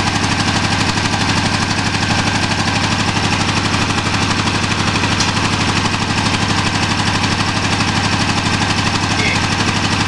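A Gravely garden tractor's engine running steadily, close by, with a rapid, even exhaust beat.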